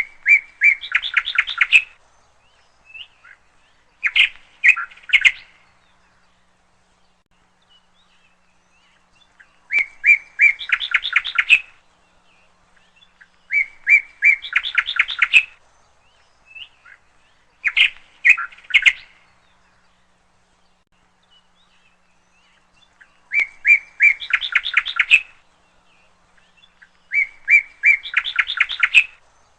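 A small bird singing a short phrase over and over: a few sharp chirps run into a fast trill lasting about two seconds. The phrase repeats every four to six seconds, with quiet pauses in between.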